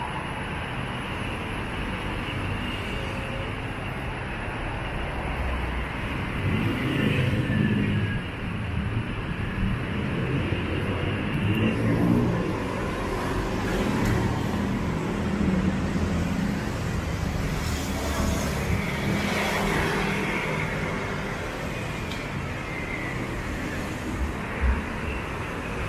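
Road traffic running alongside: a steady hum of car engines and tyres that swells as vehicles pass, loudest about a third and half way through. A short knock comes near the end.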